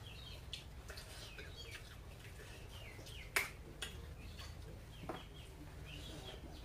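Birds chirping in the background: short, high calls again and again, with a sharp click about three and a half seconds in and a fainter one about five seconds in.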